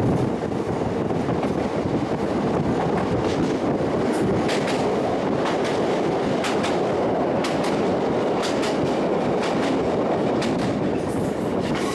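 Diesel passenger train running, heard from on board: a steady rumble of wheels and running gear on the rails. From about four seconds in, a run of sharp clicks comes from the wheels as the train crosses a steel truss bridge.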